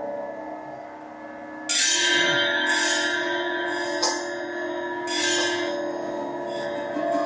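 Improvised music for metal percussion and live electronics. Held bell-like tones sound first. About two seconds in, a loud bright layer of high hissing bursts enters over a steady low tone and recurs every second or so.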